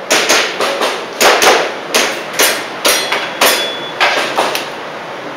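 Airsoft pistol shots fired in a steady string, about a dozen sharp cracks at two to three a second, each with a short ringing tail.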